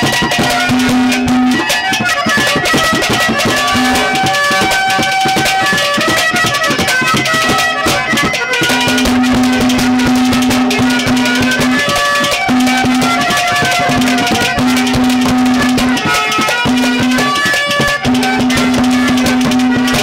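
Live Haryanvi folk instrumental: a reed keyboard plays a melody of held notes over a low note sustained in long stretches, while hand drums keep a fast, dense beat.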